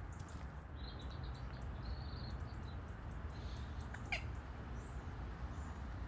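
Outdoor ambience: a steady low rumble like wind on the microphone, with a few faint high bird chirps about a second or two in and a single brief click about four seconds in.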